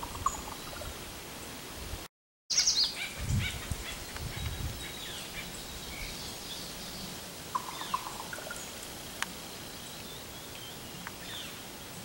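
Songbirds chirping in many short, high notes, with a few lower calls about eight seconds in. The sound cuts out completely for a moment about two seconds in, and a couple of low thumps follow.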